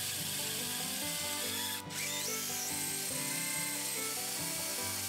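Power drill with a wide bit boring a hole through a pine board, a steady dense whir of cutting. It breaks off for a moment nearly two seconds in, then resumes with a thin high whine that rises briefly.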